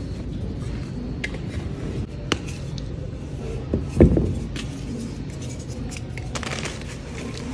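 Hands scraping and crumbling reformed gym chalk in a bed of loose chalk powder, with a sharp crack a couple of seconds in and a heavy thump about four seconds in as the chalk blocks are handled, then gritty crumbling near the end as a piece is squeezed.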